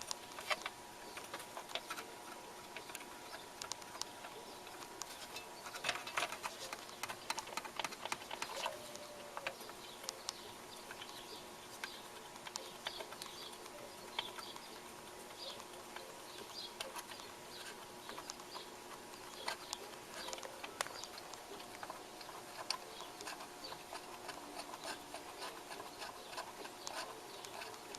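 Faint small clicks and scratchy rubbing of hands handling the turntable's mechanism parts, scattered throughout, over a faint steady hum.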